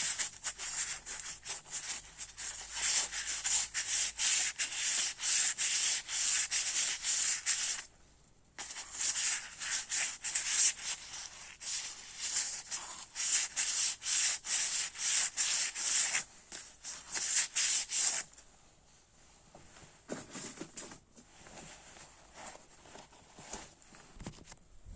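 Hand sanding of a brake part with fine 320–400 grit sandpaper: quick back-and-forth rubbing strokes, with a short pause about eight seconds in. The strokes stop about eighteen seconds in, leaving faint handling sounds.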